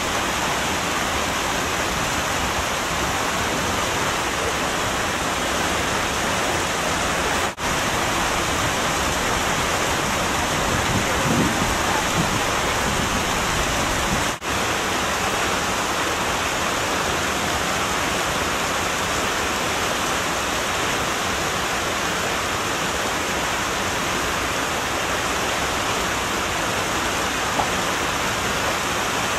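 A steady, even rushing hiss like falling water, with two very brief dropouts about a quarter and halfway through.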